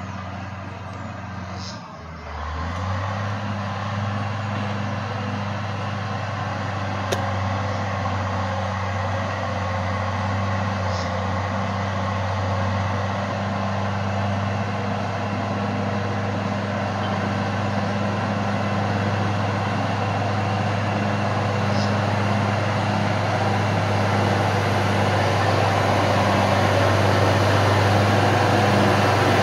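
Caterpillar 12G motor grader's diesel engine running under load with a steady low drone. It revs up about two seconds in and grows gradually louder as the grader comes closer.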